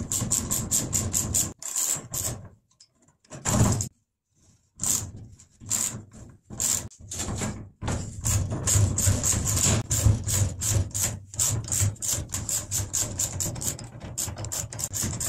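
Socket ratchet clicking in quick runs, several clicks a second, as it is swung back and forth to undo a bolt on a steel cart frame, with a combination wrench holding the nut. A break of about two seconds after the first couple of seconds.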